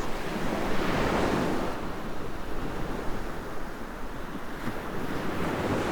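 Ocean surf breaking and washing up on a sandy beach, a steady rushing that swells about a second in.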